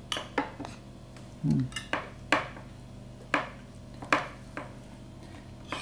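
Metal spoons clinking and scraping against plates and bowls as food is served, about eight sharp, irregular clinks. A brief vocal grunt about one and a half seconds in.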